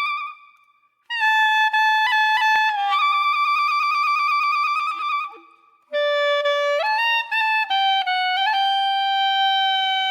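Comic background music: a solo clarinet-like wind instrument playing a playful melody in short phrases, with a wavering, warbling stretch in the middle and two brief pauses.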